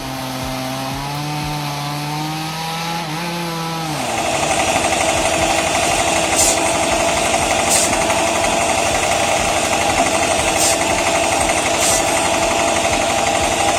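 Engine-powered saw running: a wavering engine tone for the first few seconds, then from about four seconds in a louder steady machine noise with a fast rhythm as it cuts wood, with short hissing bursts several times.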